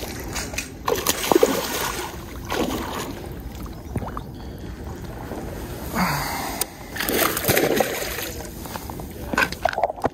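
A hooked fish thrashing and splashing at the water's surface in short, irregular bursts as it is reeled in to the bank.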